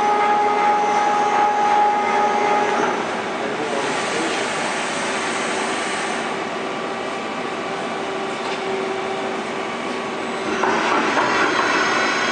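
Youji YV1600 CNC vertical boring mill running under program control: a steady machine whine with a couple of held tones, louder for the first few seconds and rising again near the end.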